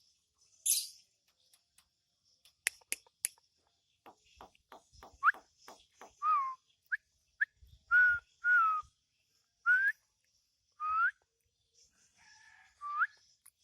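Javan myna calling: a short harsh burst near the start, then a run of sharp clicks, then a string of short whistled notes, some sliding up and some dipping down.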